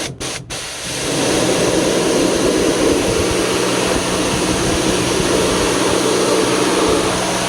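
A few quick clicks, then a motor-driven cleaning machine starts running steadily with a loud rushing noise over a low hum.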